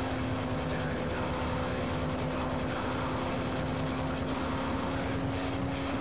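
Sport motorcycle engine running at steady, high revs while cruising at speed. Its even drone holds one pitch throughout, under a constant rush of wind noise.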